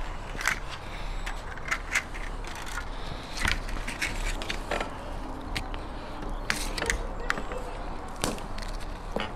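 Metal wire pulled off a spool, cut with pliers and worked through meat against a steel spit rod: irregular sharp clicks, snips and scrapes.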